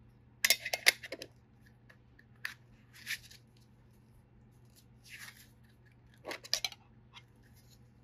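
Handling noise: Zippo lighters in metal gift tins and bubble-wrap packing being picked up and set down, in short bursts of clicks and rustles, about five times.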